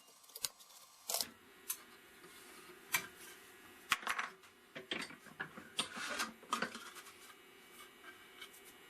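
Clamps being loosened and taken off a freshly glued wooden sled: a string of irregular clicks, knocks and clatters with short rasping scrapes, busiest from about three to seven seconds in.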